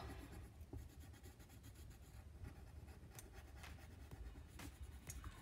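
Faint scratching of a pencil shading on paper, in short strokes.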